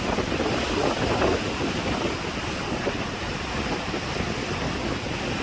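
Heavy sea surf with rough waves surging and breaking, a steady wash of noise that swells a little in the first second or so, with wind buffeting the microphone.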